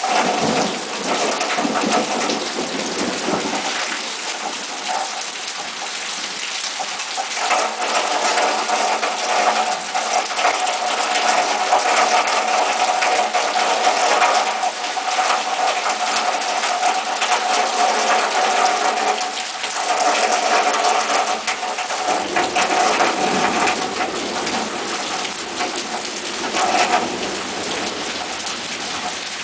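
Heavy thunderstorm rain pouring onto trees, foliage and a roof: a dense, steady hiss of drops that swells and eases in intensity.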